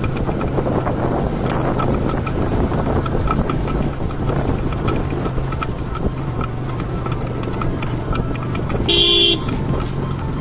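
Motorcycle engine running at a steady pitch while riding. About nine seconds in, a vehicle horn honks once, briefly.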